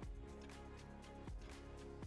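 Quiet background music: soft held chords over a light, steady beat of about three pulses a second.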